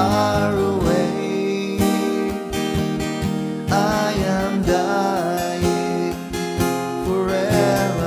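Acoustic guitar strumming chords, played with a capo, with a voice singing a few long held phrases over it.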